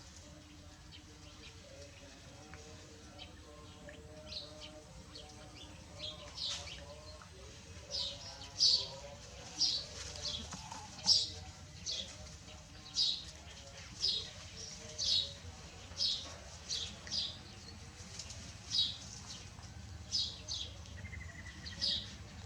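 An animal calling in a series of short high-pitched chirps, about one a second. The chirps start a few seconds in and grow louder toward the middle.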